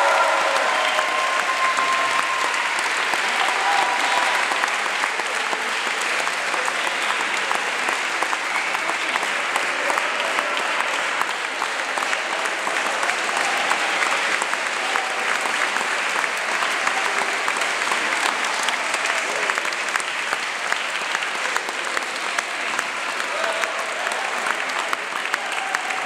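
Long, steady applause from a crowd, dense even clapping with scattered voices among it.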